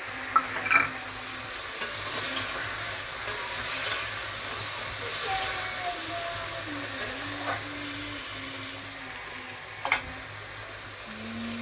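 Potato and green-banana pieces sizzling in oil in a metal kadai with cumin paste and a little water added, while a long metal spatula stirs them, scraping and clicking against the pan. One louder clink comes near the end.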